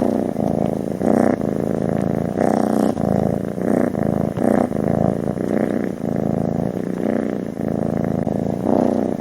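Cat purring loudly close to the microphone: a continuous low buzz that swells and eases every half second or so with its breathing in and out.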